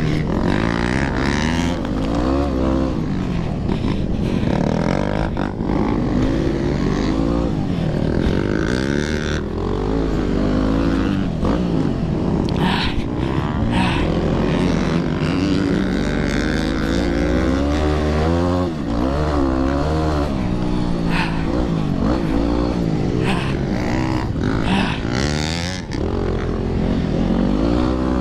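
Yamaha WR250R's 250 cc single-cylinder four-stroke engine revving hard, its pitch rising and falling again and again as the rider throttles and shifts at race pace, heard up close on the bike. Short knocks and rattles from the bike and track are scattered through it.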